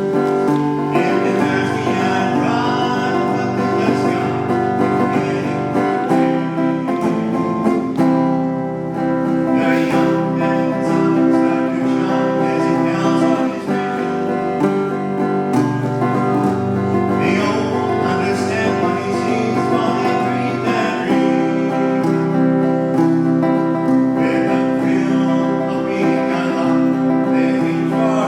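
Acoustic guitar music: strummed chords changing every few seconds over a low bass line, an instrumental passage of a song.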